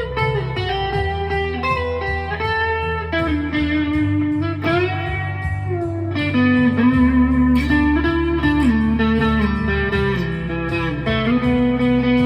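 Chapman ML1 Modern Standard electric guitar, its neck humbucker split to single coil, played through an overdrive pedal: a run of sustained single notes, with a string bend about five seconds in.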